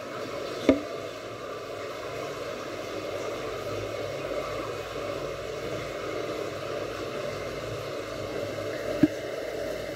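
Steady, muffled rushing noise heard through water, with a sharp knock a little under a second in and another near the end.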